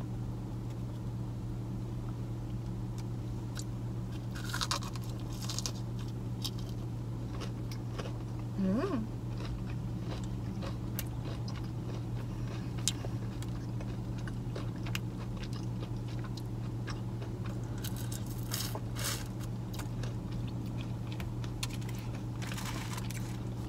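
Close-up chewing of a fried, breaded butterfly shrimp dipped in creamy sauce, with crisp crunches around five seconds in and again near the end, and a short hummed voice sound around nine seconds in. A steady low hum runs underneath.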